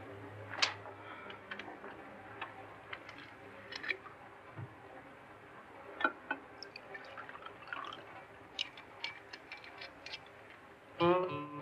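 Faint, irregular small clicks and ticks over a low hum. An electric guitar starts playing near the end.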